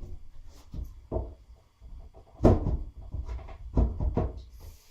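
Wooden bed-frame pieces knocking and bumping as the crosspieces are fitted into the leg piece. A handful of irregular thuds, the loudest about halfway through.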